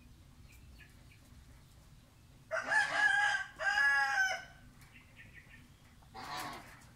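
A rooster crowing once, a long call in two parts with a short break in the middle, followed about two seconds later by a short, rougher call.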